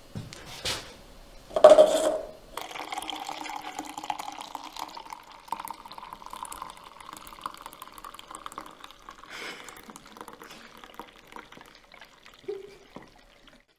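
Coffee poured from a stainless-steel vacuum jug into a paper cup: two knocks as the jug is handled, then a steady trickling stream for about ten seconds that stops near the end.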